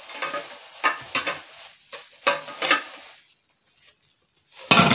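Clear plastic wrapping crinkling and rustling in several short bursts as stainless steel pots are unwrapped, then a brief quiet spell and a loud clatter near the end.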